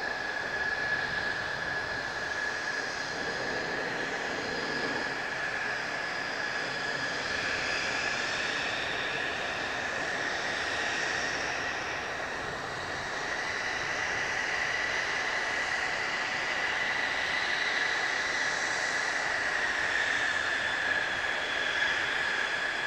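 Mitsubishi F-2 fighters' F110 turbofans at taxi power: a steady high-pitched jet whine over a broad rush, growing a little louder in the second half.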